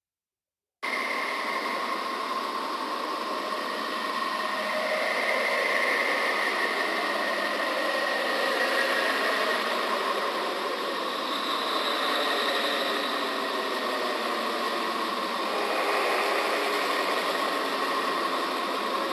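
A 'planet sound': an eerie, steady droning hiss with faint tones slowly wavering within it, which starts abruptly just under a second in.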